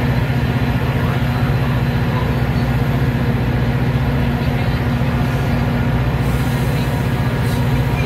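Metra commuter train standing at the platform with a steady low mechanical drone. The sliding doors of a Nippon-Sharyo bilevel coach close partway through, with a faint hiss near the end.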